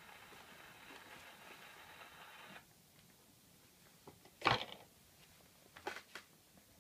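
Faint hiss and crackle of a portable wind-up gramophone's needle running on a shellac 78 rpm record after the music has ended; it stops suddenly about two and a half seconds in. Then the gramophone is handled by hand: one sharp clack, and a few lighter clicks near the end.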